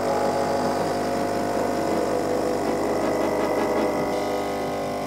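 De'Longhi ECP3420 espresso machine's vibration pump running steadily, pushing water through the coffee puck as a shot is pulled.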